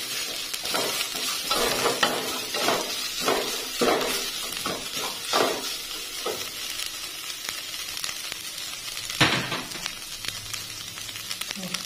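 Spice paste and fresh green leaves sizzling in an aluminium pot, stirred with a wooden spatula. The stirring scrapes come about once or twice a second in the first half, with one louder scrape or knock about nine seconds in.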